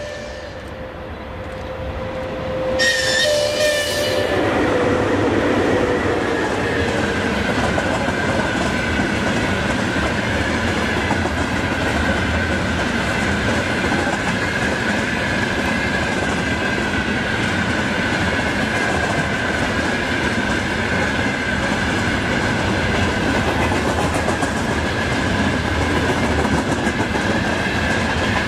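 A train passes close by on the Russian main line. It grows louder over the first three to four seconds as the locomotive reaches the track side, then the cars roll past with a steady rumble and clatter of wheels over the rails, and a thin high whine runs on throughout.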